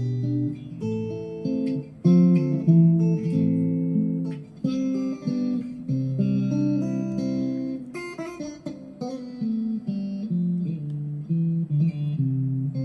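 GEARIT GST-100 Strat-style electric guitar played with the pickup selector on the neck-and-middle position: a melodic run of single picked notes mixed with chords, one note or chord struck after another.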